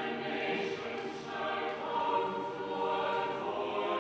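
A choir singing, several voices holding notes together in harmony.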